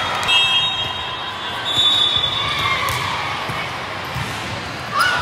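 Echoing hubbub of a large indoor volleyball hall: crowd chatter with a ball bouncing on the court floor and a few short high squeaks, and a sharper knock near the end.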